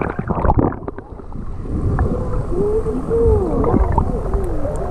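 Action camera plunging into shallow seawater: splashy clicks for about a second, then a muffled underwater rumble of moving water, with faint wavering tones in the middle.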